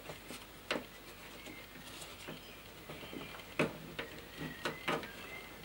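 A handful of small clicks and taps from a metal linkage rod and its plastic clip being handled and fitted inside a bare car door, most of them in the second half.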